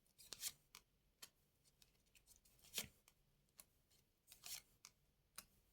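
Faint, scattered flicks and soft clicks of playing cards being handled and laid down on a table, the loudest about three seconds in.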